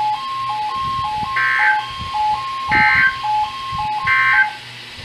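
Weather alert radios sounding their alarms for the required weekly test: a two-tone hi-lo beeping alternating about twice a second, with a higher, buzzier beep from another receiver sounding three times, roughly every second and a half. The alarms stop shortly before the end.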